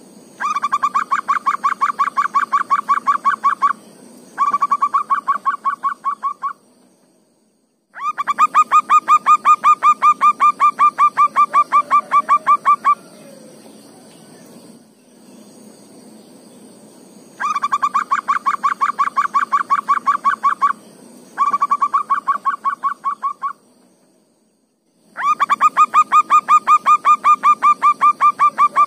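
Zebra dove (perkutut) song: bouts of rapid, evenly repeated cooing notes, each run lasting a few seconds and repeated about six times with short breaks. Behind it runs a faint, steady, high insect buzz.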